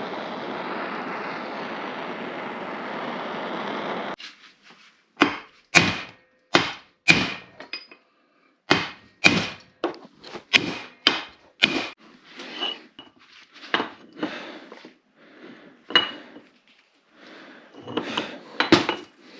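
A steady hiss for about four seconds, then a series of sharp, irregular knocks and clinks of metal engine parts and tools being handled on a workbench, a dozen or so strikes with a short ring.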